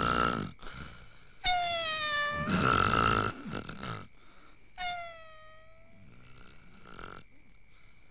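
Comic snoring from sleepers: harsh rasping snores alternate with whistled exhales that slide down in pitch, twice over, then fade to a weaker snore near the end.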